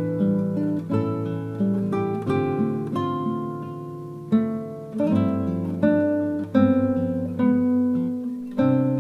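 Background music: acoustic guitar playing a slow chord progression, each chord struck about once a second and left ringing.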